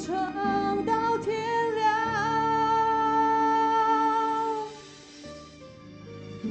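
A woman sings a slow Mandarin pop ballad into a microphone over backing music. She holds one long note with a little vibrato for about four seconds, then her voice stops shortly before five seconds in, and the softer backing music carries on alone.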